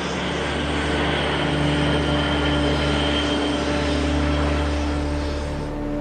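Antonov An-225's jet engines running, a steady dense noise that eases off just before the end.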